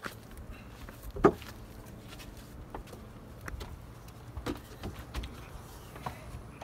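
Short cut wooden boards being handled and carried: scattered light knocks and clicks, with one louder wooden knock about a second in, over a faint low rumble.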